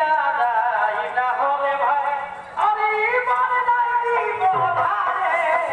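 Jhumair folk song: a voice singing melodic phrases over musical accompaniment, with a brief break between phrases about two and a half seconds in.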